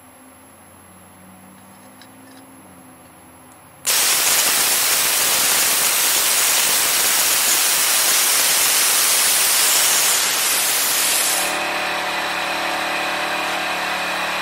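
Lotos LTP5000D plasma cutter starting up about four seconds in with a sudden loud, steady hiss of the arc and air cutting through heavy-gauge steel. About eleven seconds in it drops to a quieter hiss with a steady hum as the cut ends.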